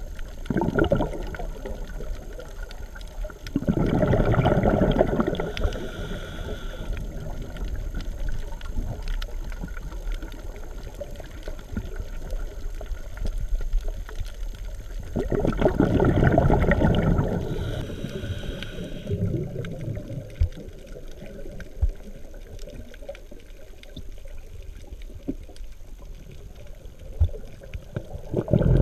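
Underwater sound picked up by a camera in its housing: a low, muffled water rumble broken by long bursts of rushing bubbles from a scuba diver exhaling through a regulator. The bubble bursts come about 4 and 15 seconds in, each lasting a few seconds.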